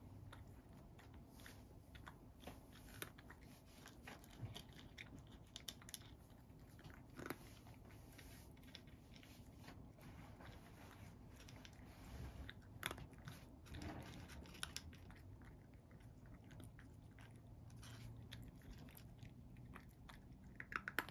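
Domestic cat eating dry kibble from a wooden bowl: soft, irregular crunches and clicks as it bites and chews the pellets, with a few sharper crunches now and then.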